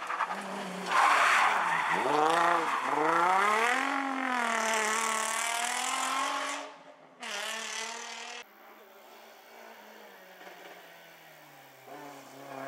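Nissan 350Z rally car's V6 engine racing past close by. Its pitch dips about two seconds in, then climbs hard as it accelerates away. After a cut, another rally car's engine is heard more quietly, its pitch falling near the end.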